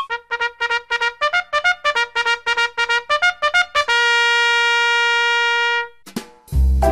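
Intro music: a quick run of short, brass-like staccato notes, then one long held note, with a heavy bass beat coming in near the end.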